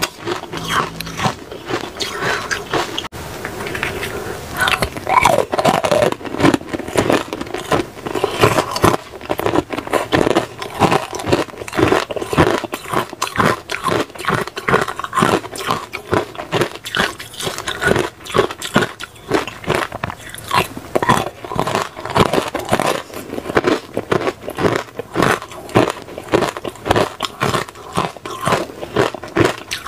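Frozen pomegranate ice being bitten and chewed: clear ice with pomegranate seeds frozen into it, crunched in rapid, repeated bites.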